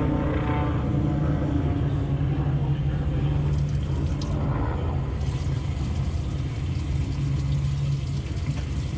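Steady low engine rumble, a motor droning at an even pitch without rising or falling.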